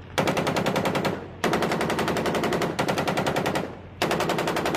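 A 7.62 mm M240 medium machine gun firing in rapid automatic bursts of about a second each, separated by short pauses.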